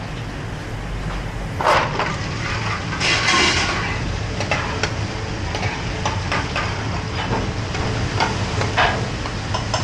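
Curry sizzling in pans on a commercial gas range while a metal spoon stirs and scrapes in a pan, with scattered clinks, over a steady low hum. A louder hiss comes about three seconds in.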